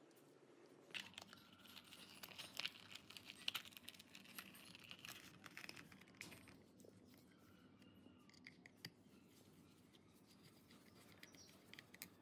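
Faint handling noises of gloved hands working a small electric motor's wire ends and plastic terminal box cover: a dense run of small scratches and clicks starting about a second in and lasting about five seconds, then a few scattered ticks.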